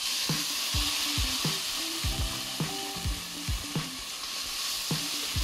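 Blended tomato, onion and garlic poured into rice frying in hot oil in a stainless steel pot: a loud sizzle that starts suddenly and carries on steadily as the mixture is stirred in with a spoon. This is the stage of Mexican red rice where the tomato goes onto the toasted rice.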